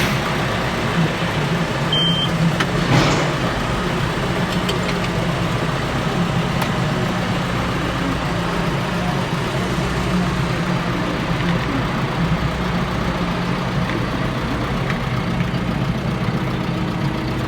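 Tractor engine idling steadily, just after being started.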